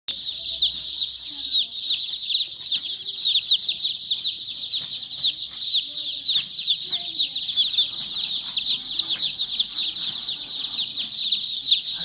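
A large flock of young chicks peeping all at once: a dense, steady chorus of high, short chirps, many falling in pitch, overlapping without a break.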